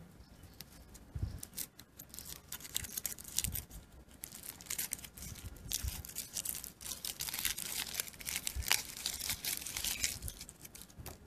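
Thin foil wrapper being peeled off a Kinder Surprise chocolate egg: irregular crinkling and tearing of the foil that thickens after the first second or two and keeps on to the end.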